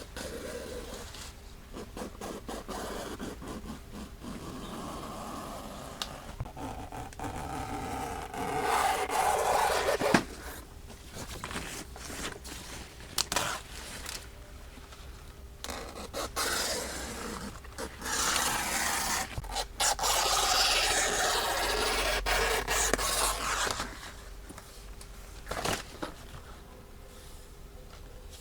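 Repeated scraping and rubbing with scattered knocks, in two louder stretches about a third of the way in and again past the middle.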